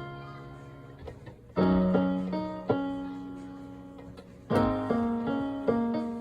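Piano chords played slowly, about four in all, each struck and left to ring and fade. The tune is being improvised by ear.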